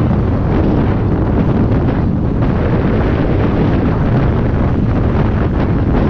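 Steady wind rushing over the microphone of a UTV driving at speed on a sandy dirt track, with the vehicle's running noise underneath.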